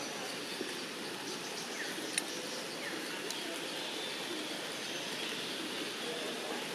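Outdoor ambience: a steady background hiss with a few faint, short falling chirps and a single sharp click about two seconds in.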